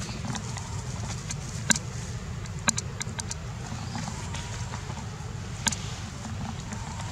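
Steady low rumble of wind on the microphone, with a few sharp clicks scattered through it, the loudest two near two seconds and three seconds in.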